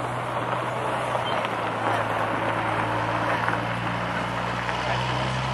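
Engine running steadily, a low drone that shifts slightly in pitch near the end, over a haze of outdoor noise.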